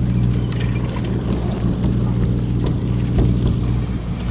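Boat engine running steadily with an even low drone.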